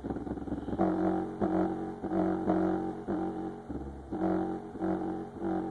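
Bass-heavy music from a demo track played loudly through a custom-built 15-inch, 4000 W subwoofer, starting suddenly, with a steady repeating beat.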